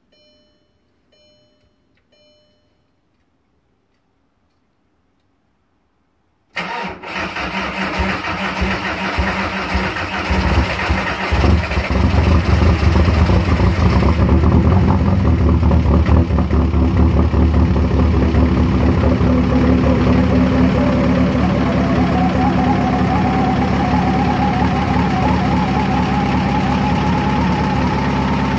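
Three soft chime tones, then a Volkswagen Jetta TDI's turbodiesel four-cylinder cold-starts after days in sub-zero cold: it catches suddenly, runs unevenly for a few seconds, and then settles into a loud, steady diesel idle. A faint tone slowly rises over the idle in the last several seconds. The engine has a bad exhaust leak.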